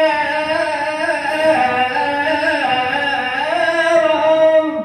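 A man singing a shalawat solo into a microphone, one long drawn-out melismatic phrase whose pitch steps down and then climbs again, ending just before the end.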